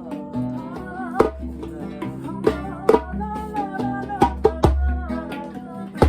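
Live acoustic music: plucked guitar strings playing chords under a wavering melody line, with sharp percussive accents falling now and then.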